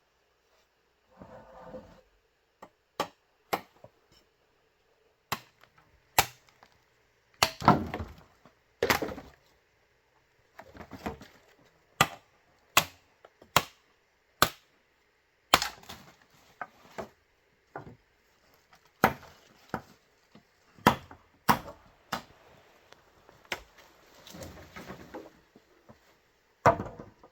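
Bamboo being chopped with a blade: about twenty sharp, irregularly spaced strikes, with a few short stretches of rustling and cracking between them.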